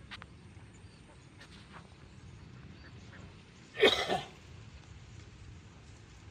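A single harsh cough from a man, about four seconds in, over faint outdoor background.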